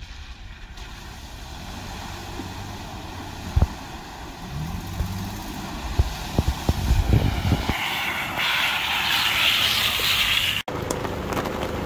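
Toyota TRD Off-Road pickup truck ploughing through a deep flooded mud hole: the engine revs up about halfway through, with heavy thuds and water and mud splashing as it pushes through, then a loud hiss of spray as it passes close by. The sound cuts off abruptly near the end, replaced by a steady hiss.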